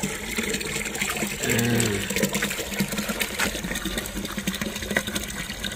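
Water splashing and trickling as a mug scoops and pours water from a steel basin for washing hands and face.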